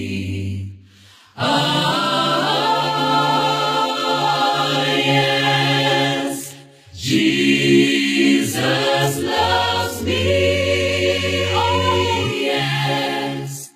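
Mixed-voice a cappella choir singing a hymn in harmony, long held phrases with brief breaks about a second in and again around six and a half seconds in.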